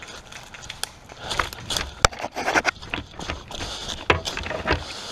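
Footsteps crunching and snapping through dry twigs and brush, irregular and quickening, with one sharp crack about two seconds in.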